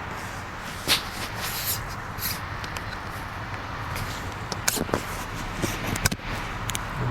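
Scattered clicks and rustles of close-by handling noise over a steady hiss, with two sharper clicks, about a second in and about six seconds in.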